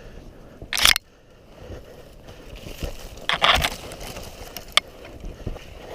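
Crunching and scraping of a person moving through snow and brush, with a loud rush just before a second in, another around the middle, and a few sharp clicks near the end.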